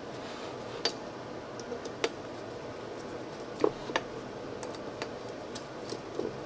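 A handful of short, light clicks and knocks at uneven intervals, the sharpest a little past the middle, over a steady background hiss.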